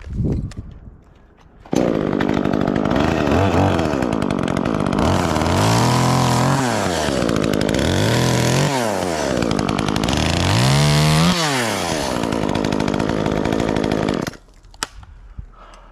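Chainsaw starting abruptly about two seconds in and running for about twelve seconds, its engine revving up and down several times, then stopping suddenly near the end.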